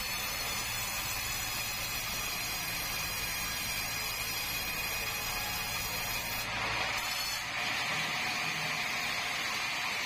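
Sawmill band saw running steadily and cutting through a squared meranti timber on the log carriage, a continuous mechanical whine over a low hum. The sound shifts about two-thirds of the way through, with a brief dip just after.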